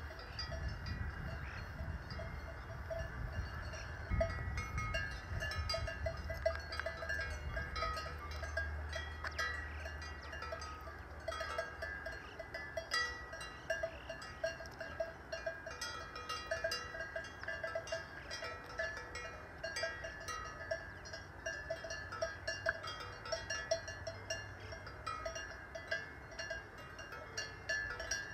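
Many cowbells clanking irregularly and overlapping, ringing at several different pitches, with a low rumble under them for roughly the first twelve seconds.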